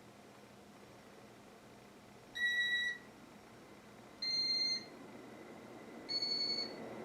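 Three electronic beeps from the Casablanca IntelliTouch ceiling fan's control, each about half a second long, evenly spaced and each slightly higher in pitch than the one before. A low hum starts to rise near the end.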